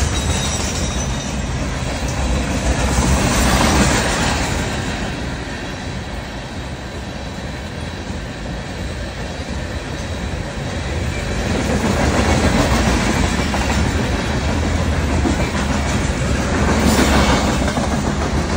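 Freight train of covered hopper cars rolling past at a level crossing, the wheels clattering steadily over the rails. The rumble swells and eases as the cars go by.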